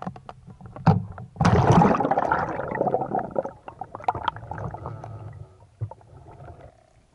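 Water splashing and bubbling around a freediving spearfisher: a few sharp knocks, then a loud rush of water about a second and a half in that fades away over the next few seconds.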